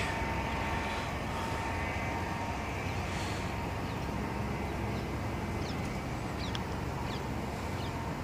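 Steady outdoor ambience: an even, low background rumble with a faint steady hum, and a few faint short bird chirps about six to seven seconds in.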